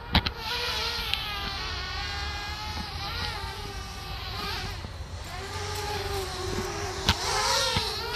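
Quadcopter drone propellers whining, the pitch of the several motor tones wavering and gliding up and down as the drone manoeuvres, over a low rumble, with a couple of sharp clicks, one just after the start and one about seven seconds in.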